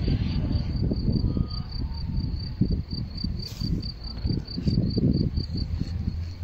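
A cricket chirping in an even, steady rhythm of short high-pitched pulses, over a low, irregular rumbling that comes and goes.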